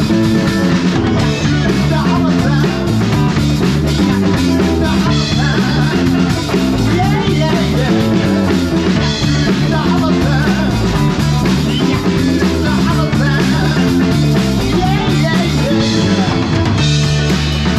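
Live rock band playing: drum kit and distorted electric guitar over a bass line, with a lead line wavering above them.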